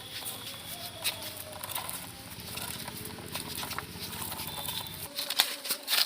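Plastic toy vehicles being handled and moved, making light clicks and rattles over a low steady hum that stops about five seconds in; the clicks get louder near the end.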